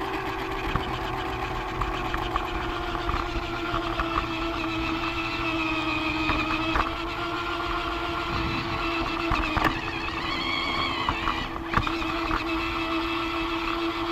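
Small electric motor of a Lego toy train running with a steady whine, over a low rushing hiss of fountain water. A brief higher tone rises and falls about ten seconds in.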